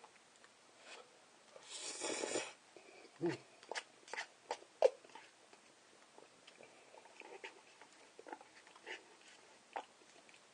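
Close-miked eating sounds of a man eating cup instant noodles: a breathy rush about two seconds in, then scattered wet mouth clicks and chewing.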